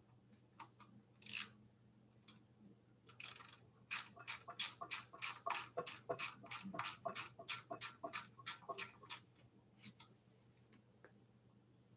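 Scattered clicks and knocks from hand-tool work at an e-bike's front wheel and fender, then a run of steady, even clicking, about four clicks a second, for about five seconds.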